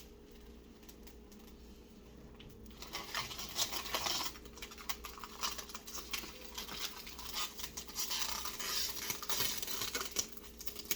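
Handling noise from fitting a PC case's tempered-glass side panel: irregular light clicks and scrapes with some plastic crinkling, starting about three seconds in.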